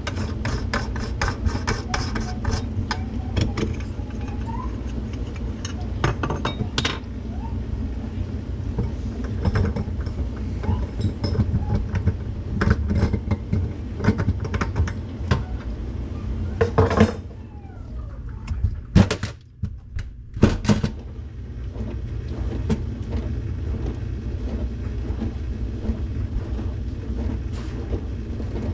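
Scattered sharp clicks and small metallic clinks, denser in the first several seconds, over a steady low rumble. The rumble drops away for a few seconds in the middle while several loud knocks sound.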